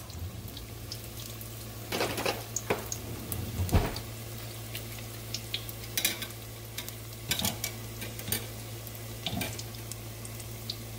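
Batter-coated corn dogs deep-frying in a stainless steel pot of oil, sizzling steadily over a low hum, with a few light clacks and scrapes against the pot.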